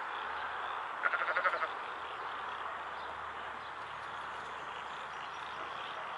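A young lamb gives one short, quavering bleat about a second in, over a steady background chorus of calling animals.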